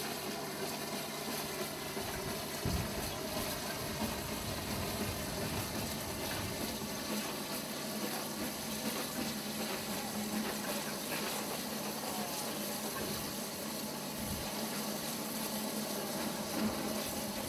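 Straw-fired Case steam traction engine standing under steam: a steady hiss of steam with a low hum underneath.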